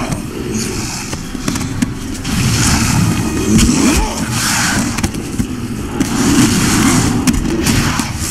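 Dense action-film fight sound effects: a string of heavy impacts and blows over a loud low rumble, with swells of rushing hiss.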